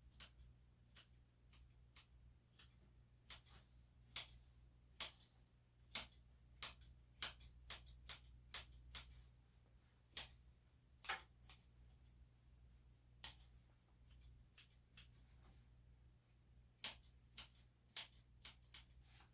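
Steel grooming scissors snipping a puppy's coat: crisp metallic snips at about two a second, in irregular runs with short pauses.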